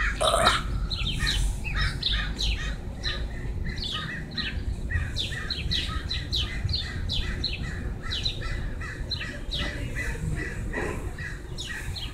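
Birds chirping: a steady, rapid series of short descending chirps, several a second.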